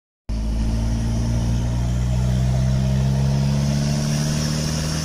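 Isuzu 4JG2 3.1-litre four-cylinder turbo diesel engine running steadily, its pitch creeping slowly upward.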